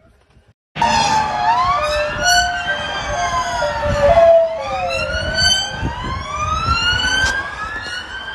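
Several emergency-vehicle sirens wailing at once, their pitches sweeping up and down and overlapping, starting abruptly about a second in. For the first few seconds a lower tone also jumps back and forth between pitches.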